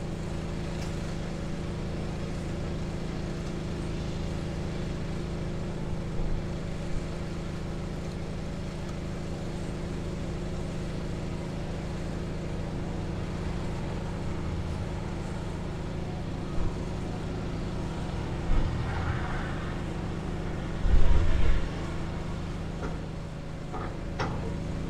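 Steady low mechanical hum from a running motor. A few brief low thumps come in the second half, the loudest about three-quarters of the way through.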